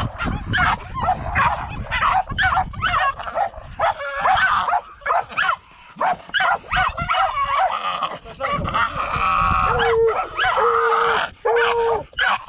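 Mink-hunting dogs barking and yelping excitedly, several at once in quick overlapping barks. Near the end this turns into a run of drawn-out whining yelps about once a second.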